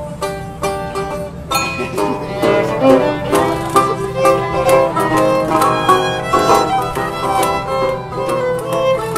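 Acoustic string band playing an upbeat bluegrass-style tune, with fiddle, guitar, mandolin and washboard. Plucked strings open it, and about a second and a half in the fuller band with the bowed fiddle comes in.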